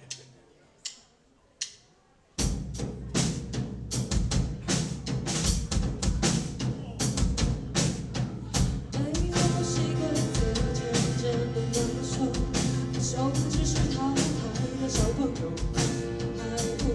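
Two sharp clicks in near quiet, then a live rock band starts its instrumental intro: drum kit with kick and snare plus bass, joined about nine seconds in by sustained chords and a melody line.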